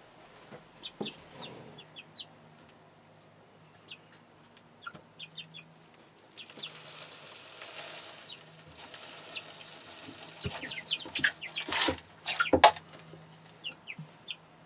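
Hens clucking, with a rush of dry chicken feed poured from a plastic cup into a PVC pipe feeder about six and a half seconds in, and several sharp knocks and rattles near the end.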